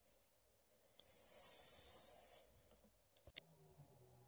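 A graphite pencil scratching across paper in one long, even stroke as it draws a curved line. Near the end, a few sharp clicks.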